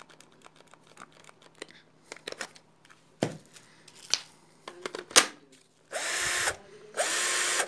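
Bosch cordless drill run twice in short bursts near the end, each time spinning up with a rising whine and then holding steady, powered by its newly converted 3S lithium-ion battery pack made from 18650 laptop cells. Before that, a few sharp clacks as the drill is handled.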